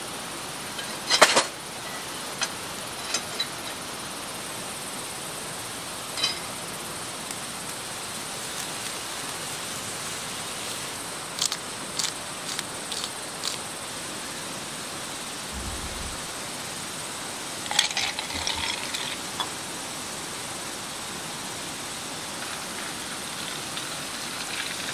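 Wood fire crackling in a fire pit, with scattered sharp pops and snaps over a steady low hiss. The loudest snap comes about a second in and a cluster comes later. The logs on it are damp firewood, set on top to dry.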